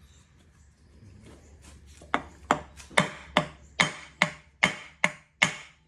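Nine sharp hammer taps, about two or three a second, on the engine's oil pan, each with a short metallic ring: knocking the pan to break it loose from the sealer that holds it on in place of a gasket.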